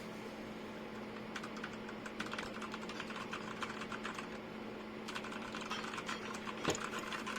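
Typing on a Royal Kludge RK G87 mechanical keyboard: rapid key clacks begin about a second and a half in, pause briefly midway, then resume, with one heavier thud near the end. A steady low hum runs underneath.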